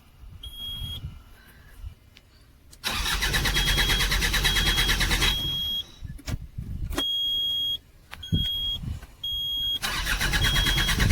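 Bobcat loader's diesel engine cranking on the starter twice, each time for about two and a half seconds with an even pulsing beat, and not catching: the fuel pump is not passing diesel to the engine. A high warning beep sounds on and off, with a few clicks between the two cranks.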